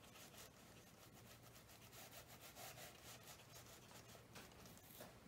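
A flat watercolor brush stroking across watercolor paper: faint, quick, repeated rubbing strokes.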